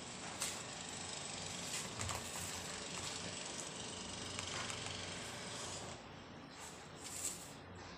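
Silicone spatula pressing and scraping a crumbly kalakand mixture of paneer and milk solids across a steel plate to spread it flat, with a few light clicks of the spatula against the plate. The scraping eases about six seconds in.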